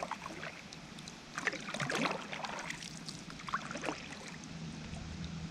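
Paddle strokes dipping and splashing in the water as a small boat is paddled along a river, a splashy stroke about every two seconds. A faint steady low hum runs underneath near the end.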